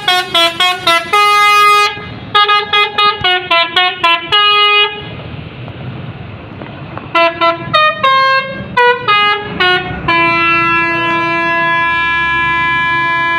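Telolet horn on an ALS bus playing a tooting melody: quick runs of short notes in two bursts, a short pause, more notes, then a long held chord near the end.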